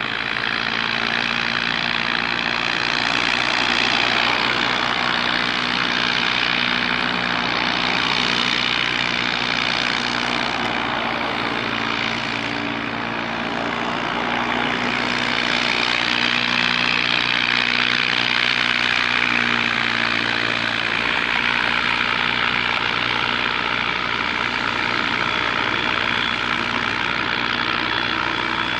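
Boeing 727 Super 27's three rear-mounted jet engines running at taxi power: a steady high whine over a low hum, swelling and easing slightly as the jet taxis.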